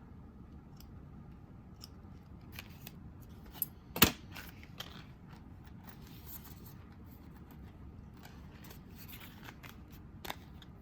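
Scissors snipping loose thread ends: scattered small snips and clicks, with one sharp click about four seconds in.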